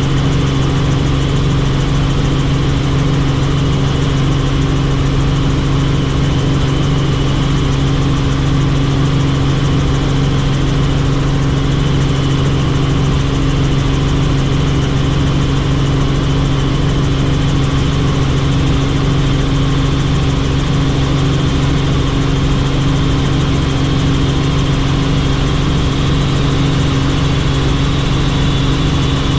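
Helicopter in flight, its engine and rotors giving a loud, steady noise with a constant low hum.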